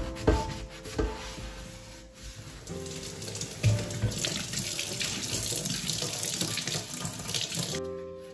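Water spraying from a pull-out kitchen faucet onto a metal wire oven rack in a stainless-steel sink, rinsing it, starting about three seconds in and cutting off near the end. A few sharp knocks come first, as the rack is handled.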